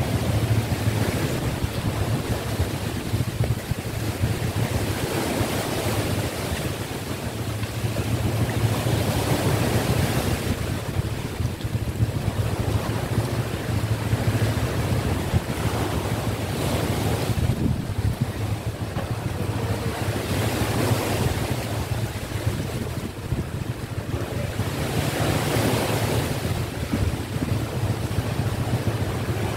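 Sea waves washing in against the shore, the surf swelling and easing every few seconds, with wind buffeting the microphone as a constant low rumble.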